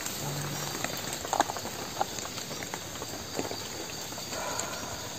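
Quiet night ambience: a steady hiss with scattered faint crackles and ticks, and a brief low hum just after the start.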